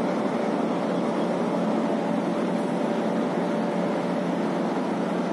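Locomotive standing coupled to its coaches, running with a steady machine hum and a faint steady whine that fades out about four seconds in.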